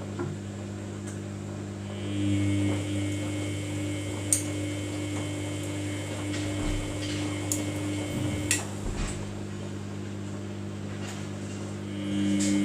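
Samsung washing machine running a wash: its drum motor hums and whines while turning the drum for several seconds, stops about two thirds of the way through, then starts again near the end. A few light clicks from the machine.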